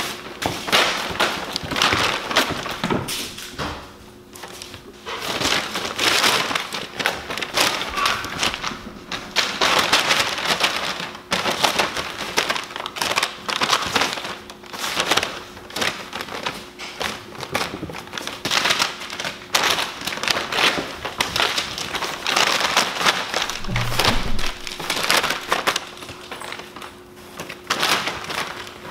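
Brown kraft paper crinkling and rustling in repeated irregular bursts as kittens pounce on, tug and scramble under it, with a few soft thumps, including a heavier thud near the end. Music plays faintly underneath.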